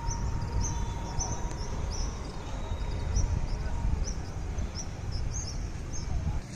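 Small bird chirping over and over, about two short, high chirps a second, over a steady low rumble of outdoor noise.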